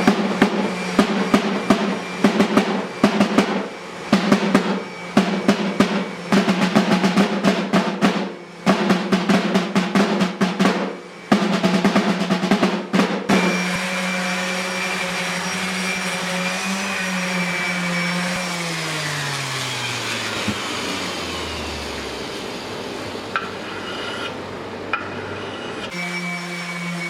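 A workshop machine running with a steady hum. For the first half a fast, irregular clatter of knocks rides over it. Then the machine winds down, its pitch falling, and a steady hum starts up again near the end.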